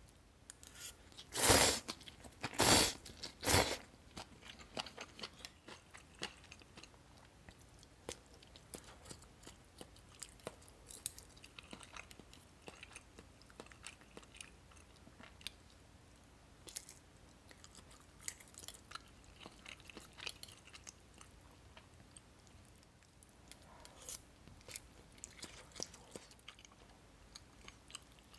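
Close-miked eating sounds: chewing and crunching of ramyeon noodles, fried fish cake and soybean sprouts. Three loud bites come within the first few seconds, then soft, irregular crunchy chewing with small clicks.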